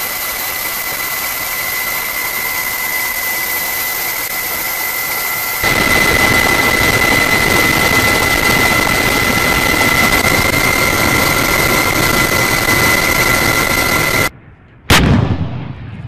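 A loud steady roar with a high steady whine, growing louder about six seconds in and cutting off suddenly near the end. One sharp artillery-gun blast follows and dies away.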